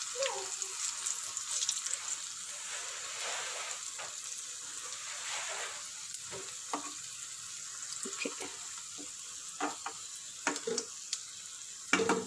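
Jackfruit-and-rice batter fritters frying in hot ghee with a steady sizzle. In the second half come a few sharp clinks and scrapes of a metal slotted spoon against the pan as the fritters are turned, the loudest near the end.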